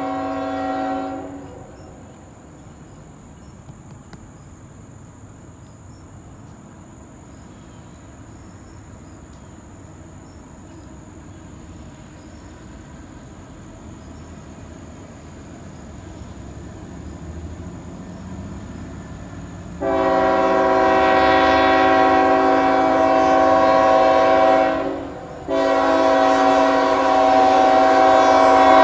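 Air horn of an approaching CSX diesel freight locomotive, a chord of several notes. A blast ends about a second in. Then the low rumble of the engines grows slowly louder, and two long blasts follow near the end with a brief gap between them.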